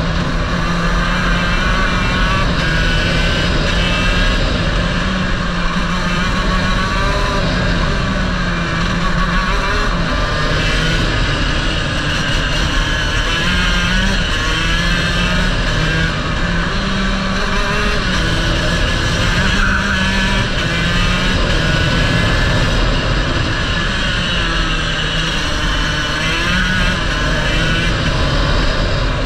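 Racing kart engine at full work, heard from on board, its pitch repeatedly climbing as the kart accelerates and dropping back under braking through the corners.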